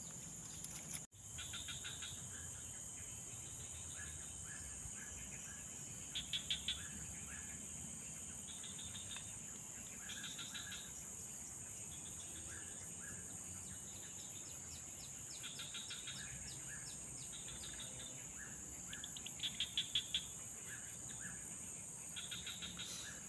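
Swamp-side insect chorus: a steady high-pitched insect drone, with short bursts of rapid chirping every few seconds, the loudest about six and twenty seconds in. The sound drops out for an instant about a second in.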